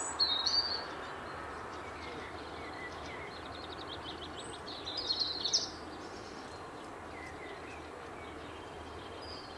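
Small birds chirping and trilling over a steady background noise. The loudest calls come just after the start and again about five seconds in, with a quick trill leading into the second.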